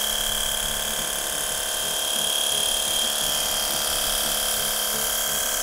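Cordless battery pressure washer running with a steady high-pitched whine, its water jet spraying through a rotating cyclone turbo nozzle and splashing against window glass.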